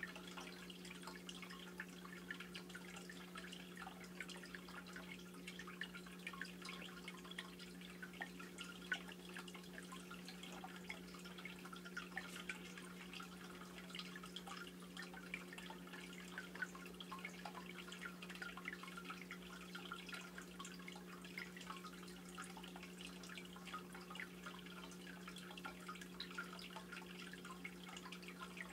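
Faint saltwater aquarium sounds: water dripping in many small irregular ticks over the steady low hum of the tank's pump.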